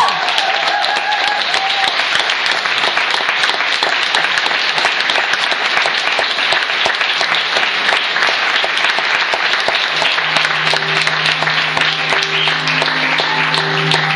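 Theatre audience applauding steadily, the last sung note of the choir fading out in the first couple of seconds. About ten seconds in, instrumental music with a held low note starts under the clapping.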